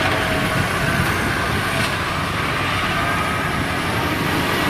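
Kubota DC-70G tracked combine harvester's diesel engine and drive running steadily as the machine crawls through soft, sticky paddy mud, still pulling strongly.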